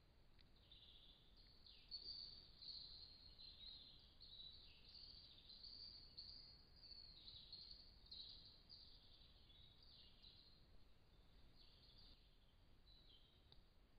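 Faint, repeated high-pitched chirping calls from an animal, short curved notes coming every half second to a second, thickest in the middle and thinning out near the end.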